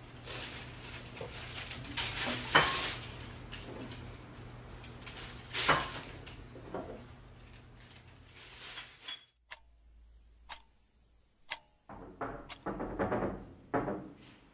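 Knocks and clatter of small household objects being handled and put away, over a steady low hum. About nine seconds in the hum cuts off, and a few sharp clicks about a second apart are followed by more clatter.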